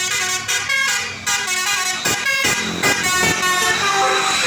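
Tourist bus's telolet horn, a multi-tone musical air horn, playing a quick tune of stepped notes. A few sharp knocks cut in around two seconds in, and near the end the tune fades into a steady noisy rush.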